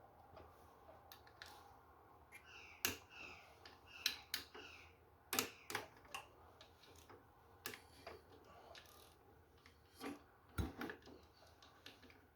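Hand tools and metal engine parts clinking and knocking irregularly while a motorcycle clutch is taken apart, with a few louder knocks standing out.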